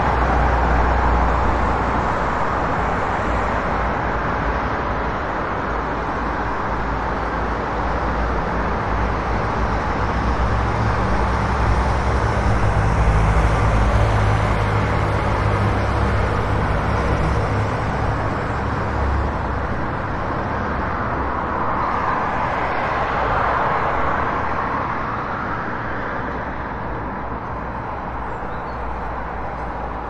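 City street traffic ambience: a continuous wash of vehicle noise with a deep engine rumble that swells around the middle. Another vehicle swells past a little after two-thirds through, and the traffic fades slowly toward the end.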